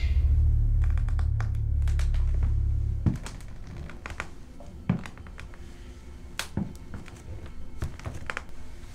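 A deep, loud horror-score drone for about three seconds, cut off by a thud. Then a handful of irregular soft footsteps and knocks on a hard floor.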